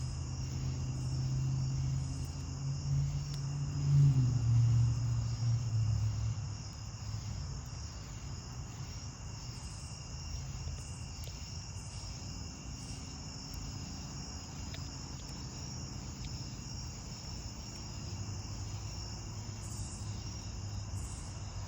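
Crickets chirping steadily in an even, pulsing rhythm. A low rumble swells over the first few seconds, peaks about four seconds in, then fades away.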